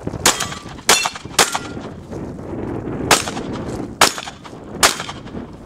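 A shotgun fired in a quick, unevenly spaced string of six sharp reports over about five seconds.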